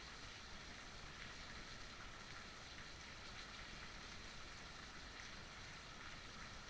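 Heavy rain falling, a steady, even hiss of rain with no separate drops or breaks standing out.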